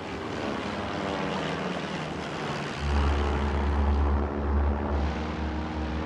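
Propeller aircraft engine droning steadily over a rushing noise, growing louder and deeper about three seconds in.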